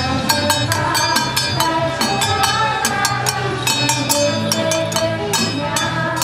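Festive music: a melody carried over quick, evenly spaced percussion strokes, accompanying the costumed deity dancers.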